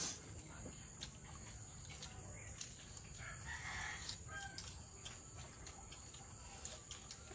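A rooster crowing once, about three seconds in, over scattered small clicks.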